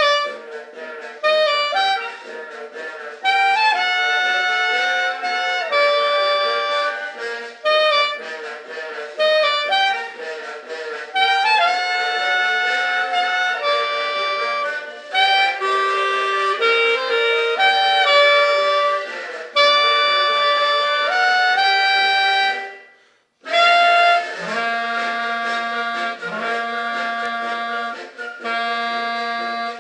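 Music played on a wind or reed instrument: a melody of held notes over sustained lower notes, stopping briefly once late on before going on.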